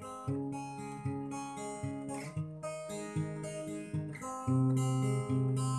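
Acoustic guitar played solo, chords sounded one after another in a steady pattern with a change of chord about every second.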